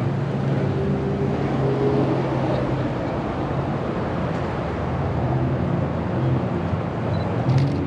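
Car engine idling amid steady outdoor noise, with a brief sharp click near the end.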